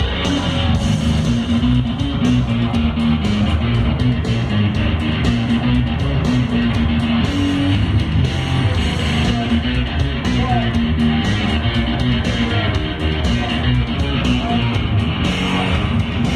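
Loud amplified electric guitar playing a fast, driving rock riff live, with dense low notes that change several times a second.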